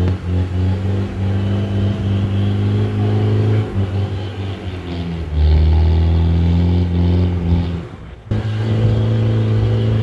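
Off-road 4x4 engine labouring under load on a steep mud climb, its revs rising and falling. It gets louder and deeper about five seconds in and drops out briefly about eight seconds in.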